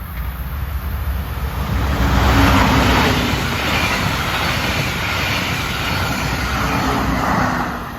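Brightline passenger train, Siemens Charger diesel-electric locomotive and coaches, passing at high speed: a loud rush of wheels on rail and moving air that builds over the first two seconds, holds, and falls away near the end.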